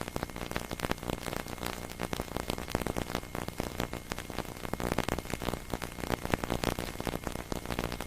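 Steady crackling, hiss-like noise, thick with fine clicks.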